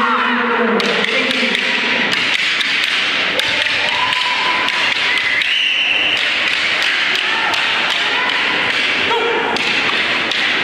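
Repeated thumps and taps from a wushu group weapons form: performers stamping on the mat and working their staffs, scattered all through, over a steady haze of crowd chatter.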